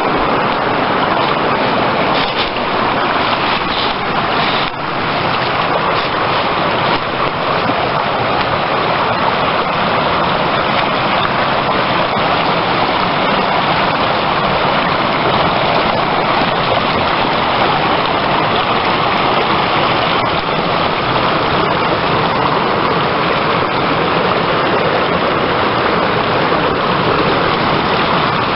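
Shallow stream running over a rocky bed, a steady, even rush of water.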